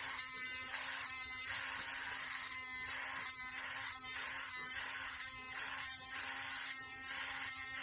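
Small 3.7 V cordless rotary tool motor running with a steady hum and a regular pulsing, a bit more than once a second, that sounds funny.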